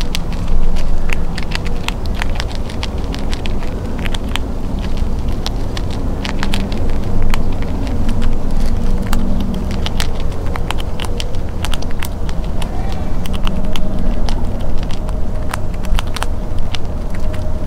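Gray squirrel eating peanuts close up: a quick, irregular run of sharp crunching clicks over a steady low rumble.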